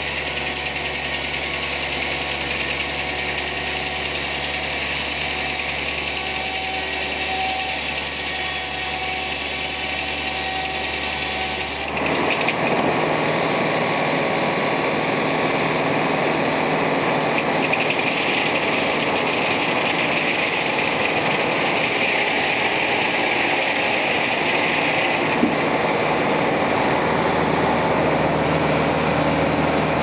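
Circular sawmill running, its large blade spinning under power with a steady mechanical drone. About twelve seconds in the sound shifts abruptly and gets a little louder, then carries on steadily.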